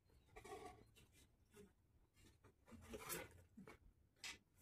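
Faint, scratchy rubbing of fingers peeling the thin skins off boiled potatoes, with a small click near the end.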